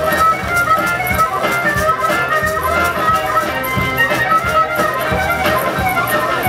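Live music from an open-air festival stage: a melody carried by held, changing notes over a regular low drum beat.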